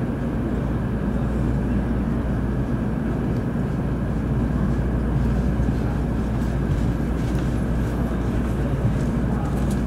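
Steady low hum and hiss inside a stationary Series N700 Shinkansen car standing at a station platform, with a few faint clicks near the end.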